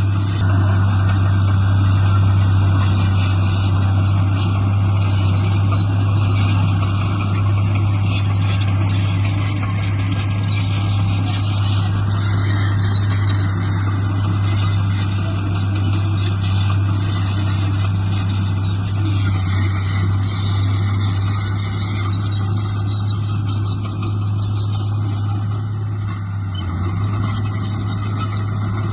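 Diesel engine of heavy earthmoving machinery running steadily, with a constant low drone and mechanical noise over it.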